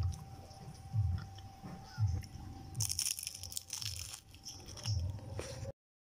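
Close-up chewing and biting of a crispy fried papaya spring roll (lumpia). Soft jaw thumps come about once a second, with a crackling crunch from a bite about three seconds in. The sound cuts off just before the end.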